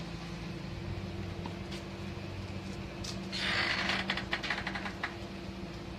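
A steady low hum, with a short rustle a little over three seconds in and then a few quick clicks and rattles, typical of handling noise as the animal is carried to its enclosure.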